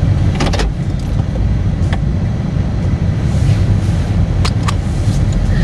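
Steady low rumble of a car heard from inside the cabin, with a few short sharp clicks.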